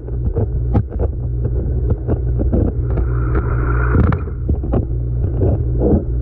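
Muffled sound from a GoPro in its case at a fish pond: a steady low hum with irregular knocks and clicks throughout, and a brief hiss about halfway through.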